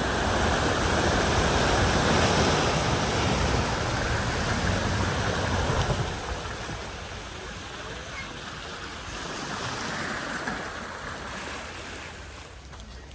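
Floodwater at a ford splashing and rushing, loud for about the first six seconds and then easing off.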